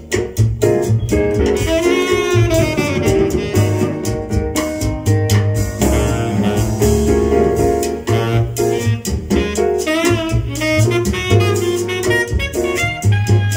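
Jazz playing from a vinyl record: a saxophone melody over a steady bass line and drums.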